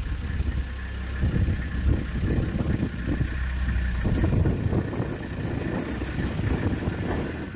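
Engine of a four-wheel-drive safari truck running steadily with a low rumble.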